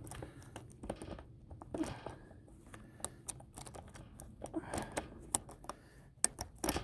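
Scattered light metallic clicks and rattles of a chainsaw chain and bar being handled as the chain is fitted onto the bar.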